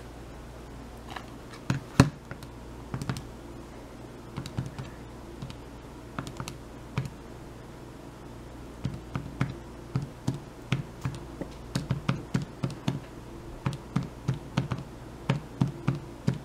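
Calculator keys being tapped while adding up a column of figures: a few scattered presses at first, then a quicker run of clicks, about two or three a second, from about halfway through.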